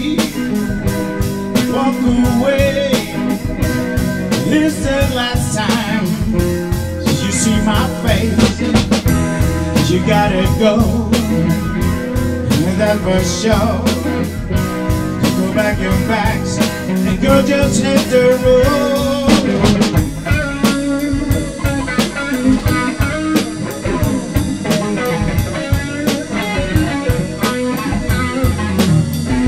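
Live blues-rock band playing a song: electric guitar, keyboard and drum kit with a steady backbeat.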